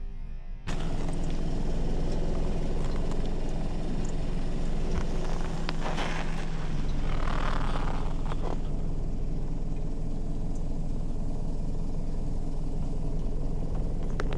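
Car engine running steadily at low speed, with a few short knocks and a brief rush of noise around the middle.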